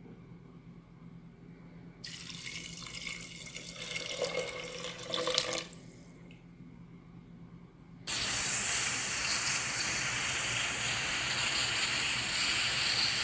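Water poured into a pressure cooker onto white hominy corn, splashing for a few seconds. About eight seconds in comes a louder, steady hiss of steam escaping from the closed pressure cooker's weighted valve as it cooks the corn under pressure.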